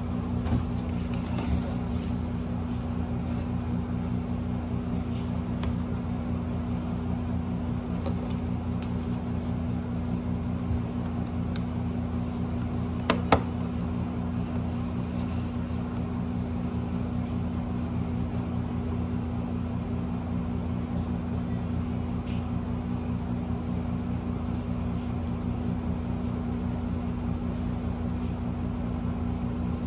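Steady low electrical hum in a small room, with light clicks and taps from a computer mouse and laptop keyboard, the sharpest click about thirteen seconds in.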